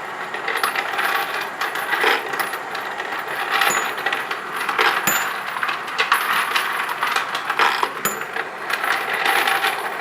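Dillon XL 650 case feeder running, with brass rifle cases clattering and clinking continuously against each other and the metal hopper as they tumble and drop into the down tube.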